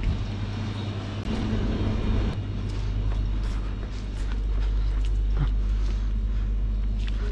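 Steady low electrical hum, typical of a shop's freezers and drink coolers running, with a few faint clicks and footsteps over it.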